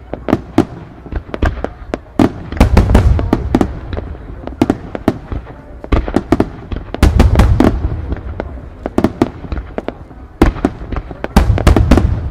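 Starmine fireworks barrage: a quick run of sharp bangs from shells launching and bursting, swelling three times, about every four seconds, into denser, deeper volleys of booms.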